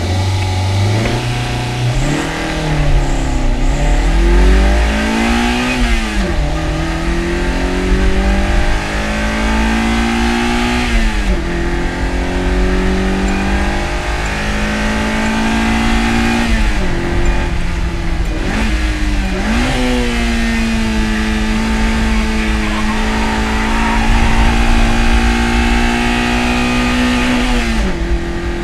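Toyota AE86's four-cylinder engine, as heard in an anime sound track, running hard through the gears. The pitch climbs and then drops sharply at each of several gear changes. It holds a steady high pitch for several seconds before a last drop near the end.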